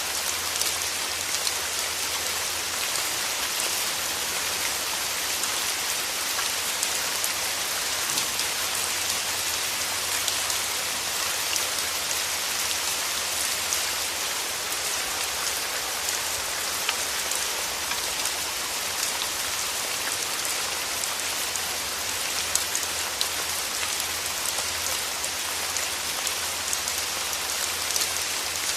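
Steady rain falling, an even hiss flecked with the ticks of individual drops striking a surface.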